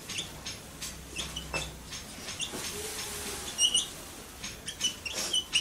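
Marker writing on a whiteboard: a run of short scratchy strokes with brief high squeaks, the loudest squeaks a little past halfway and again near the end.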